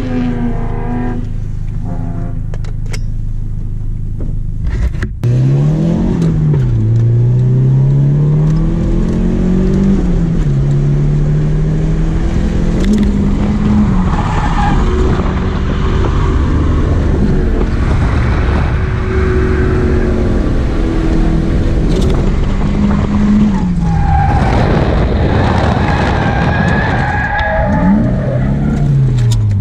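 Nissan S13's turbocharged SR20DET four-cylinder heard from inside the cabin. It runs steadily at first, then about five seconds in it is revved up and down over and over through drifts, with tyres squealing in the middle and again near the end.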